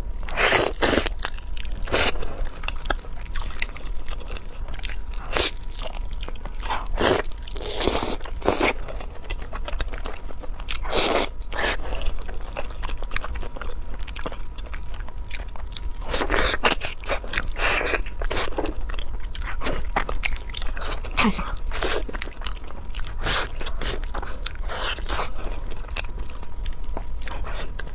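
Close-miked eating of spicy sauce-glazed pig trotters: irregular bites, wet smacks and chewing, with sharp clicks every second or so.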